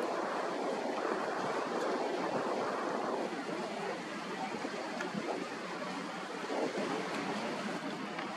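Steady rush of wind on the microphone and sea water, with no clear engine note, dropping a little in level about three seconds in.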